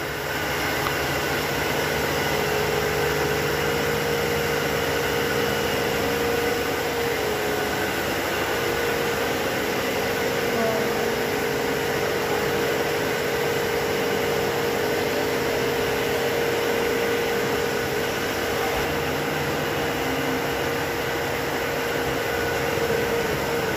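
Steady mechanical hum and hiss of running machinery, holding several steady tones at an even level throughout.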